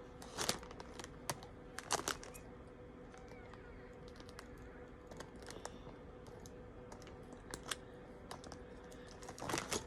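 Small plastic Lego pieces clicking and tapping as they are handled and pressed together, a few sharp clicks spread among quieter taps, with a rustle near the end.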